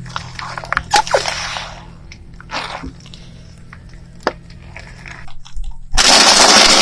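Scattered sharp cracks and snaps of something brittle being crushed under a car tyre. About six seconds in, loud music cuts in suddenly.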